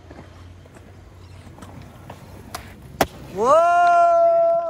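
Skateboard wheels rolling on concrete, then a sharp clack of the board about three seconds in, followed by a loud, long, held shout that rises in pitch at its start and then holds steady.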